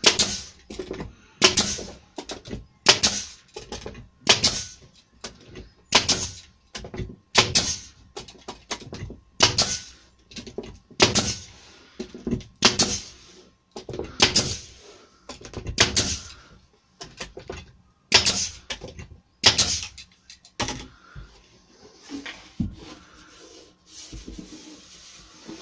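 A large pin nail gun firing pins one shot at a time into the wood moulding around a door panel, roughly one shot every second and a half, about fifteen in all. The shots stop after about twenty seconds, and light rubbing and handling of the wood follows.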